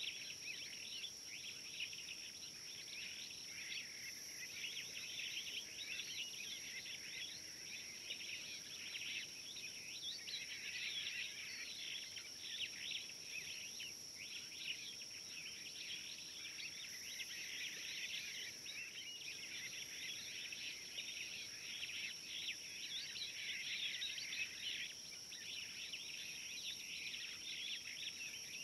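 Outdoor bush ambience of insects and birds: a steady high-pitched buzz over a dense, continuous chatter of rapid chirps.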